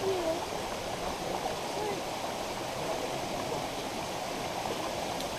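Steady rush of falling water from a waterfall and its stream, an even noise that holds at one level throughout.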